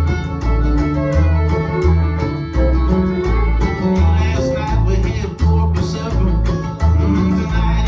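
Instrumental break of a live country string band: fiddle and guitar playing over a steady, alternating bass line.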